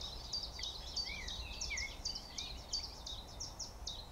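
Small birds singing: a quick run of high, sharp chirps, about four a second, with a few lower warbled notes about a second in.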